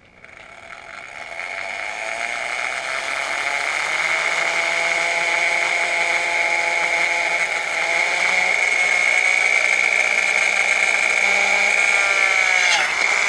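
Corded electric drill with a 1/4-inch bit boring slowly into the aluminium anti-ventilation plate of a Honda outboard's lower unit: a steady, high screech of the bit cutting metal over the drill motor. It builds up over the first couple of seconds, and the pitch drops just before the end.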